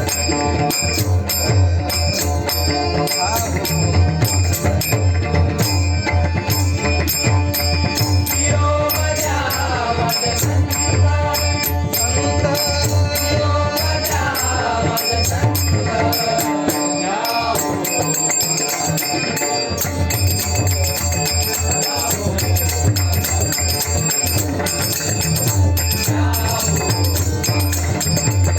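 Live performance of a devotional song in raga Bhairavi: a dense, steady percussion beat with a strong low pulse under a melodic line that glides up and down a few times around the middle.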